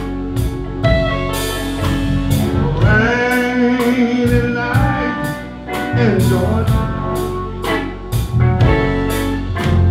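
Live blues band playing a slow ballad on semi-hollow electric guitar, harmonica, bass and drums. The harmonica plays bent notes in a gap between sung lines, over cymbal strokes about twice a second.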